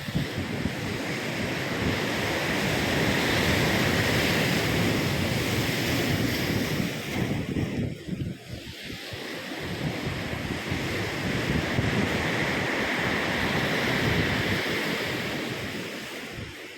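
Ocean waves breaking and washing on the shore in two long surges: the first eases off about halfway through, then the next builds and fades near the end. Wind rumbles on the microphone throughout.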